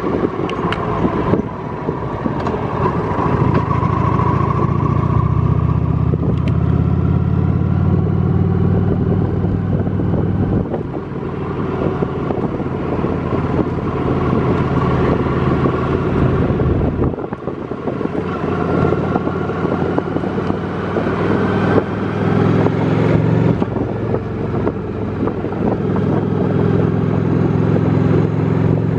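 Honda Shadow V-twin motorcycle engine running steadily under way, heard from the rider's seat. The engine note drops briefly about two-thirds of the way through, then picks back up.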